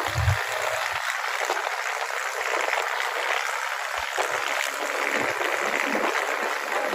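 Steady rushing hiss of air and road noise from a moving vehicle, with no clear engine note through it.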